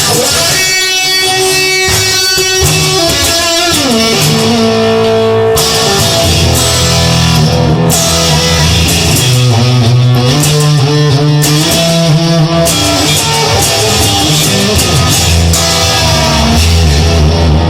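Instrumental blues-rock: electric guitar playing over a steady bass line, with a sliding, falling note about three to four seconds in.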